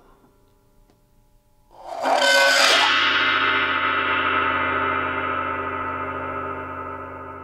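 26-inch Paiste Symphonic Gong scraped with a rosined plastic aerosol-can cap: a sudden, harsh scrape about two seconds in that lasts about a second, then the gong ringing on with many steady tones, slowly dying away. Pretty horrible.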